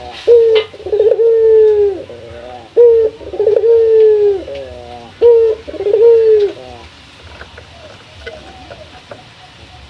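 Male ringneck (Barbary) dove cooing, a rival-challenging call. Three phrases are each a short note, then a long slightly falling coo, then a quick run of stepping-down notes. After about seven seconds only fainter coos are left.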